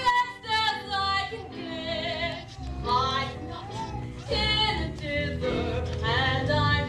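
A young female voice singing a song with instrumental accompaniment, the notes held and gliding in pitch.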